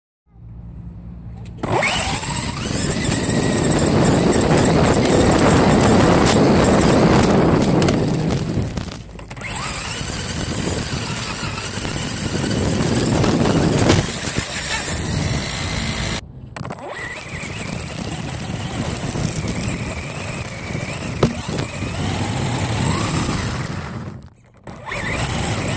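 Onboard sound of a Traxxas Slash Fox 4WD 1/10-scale short-course RC truck being driven, with its electric motor whining up and down in pitch under a loud rush of wind and tyre noise at the mounted camera. The sound drops out briefly about nine seconds in and again around sixteen and twenty-four seconds.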